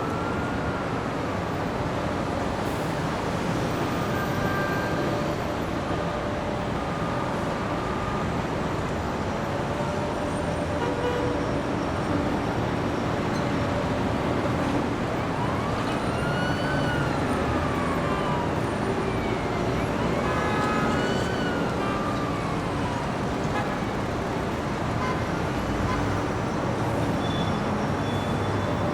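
City street traffic: a steady wash of passing vehicles. An emergency-vehicle siren wails, rising and falling in slow sweeps, at the very start and again in the second half.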